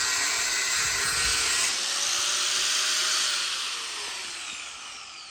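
High-speed power tool running with a steady high-pitched whine, then spinning down and fading over the last two seconds.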